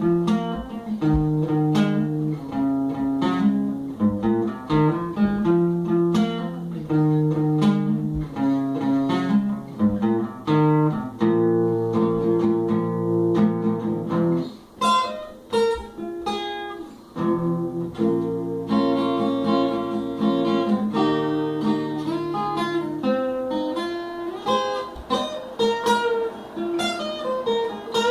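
Guitar being played: a continuous run of plucked notes and chords, with a brief dip in loudness about halfway through.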